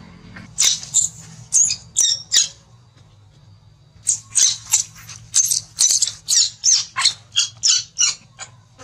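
Baby macaque crying in short, high-pitched screeches: about five, then after a pause of a second and a half a faster run of about a dozen more, roughly three a second.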